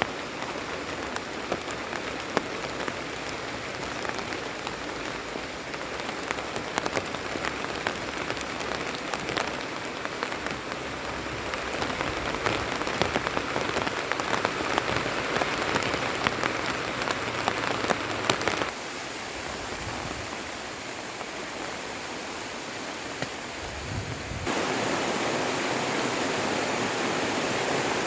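Rain falling, with many separate drops ticking on a surface. It cuts abruptly to a softer, smoother patter about two-thirds through, then to a louder, even rush of rain near the end.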